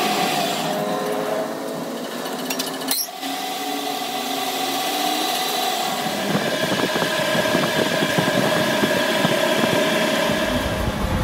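Metal lathe running with a steel shaft turning in the chuck and the cutting tool at its end: a steady machine hum with a few held tones. A brief click about three seconds in, and a lower rumble joins from about six seconds in.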